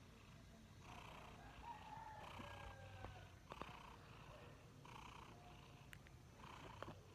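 Himalayan cat purring faintly right at the microphone, the purr swelling and easing in a slow rhythm with its breathing.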